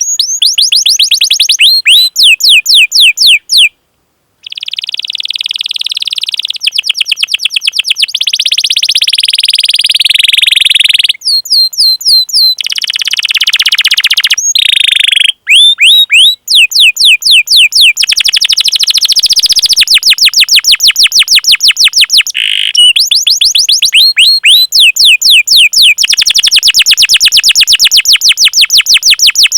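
Canary singing a long, high-pitched song of fast repeated 'cuit cuit' chirps and rolling trills, broken by short pauses about 4 and 15 seconds in.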